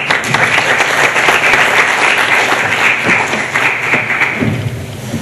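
Audience applauding in a hall, the clapping fading away about four and a half seconds in.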